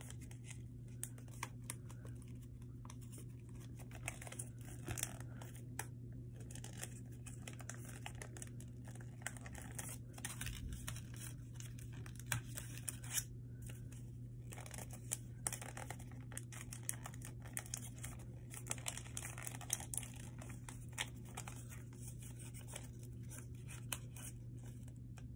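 A sheet of paper being folded and creased by hand: short, irregular crinkles and rustles as the paper is bent and pressed flat, over a steady low hum.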